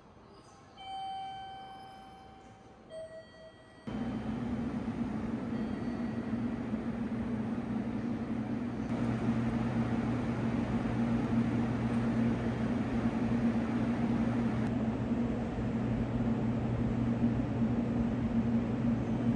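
A single electronic chime that fades over a second or two, then two short beeps. From about four seconds in, a steady low mechanical hum with a rushing noise over it takes over and holds.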